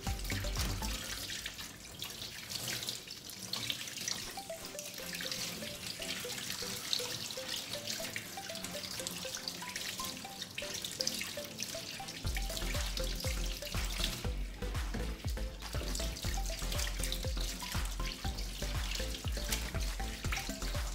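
Tap water running into a stainless steel sink while hands rinse red pepper pieces under the stream, over background music.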